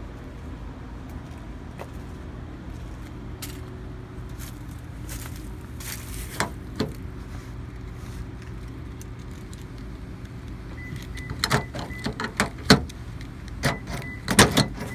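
Scattered light clicks and rattles, bunching into a quick run of them over the last few seconds, with a faint steady high tone under them near the end. A steady low rumble underlies the whole stretch.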